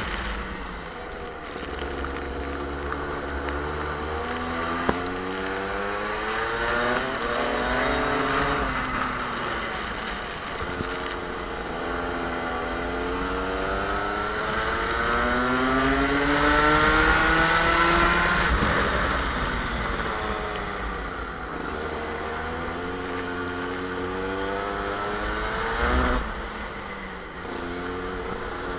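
Two-stroke Rotax kart engine heard from on board, climbing in pitch along each straight and dropping off into the corners about five times, with the longest climb peaking about two-thirds of the way through. A steady low rumble of wind on the camera runs underneath.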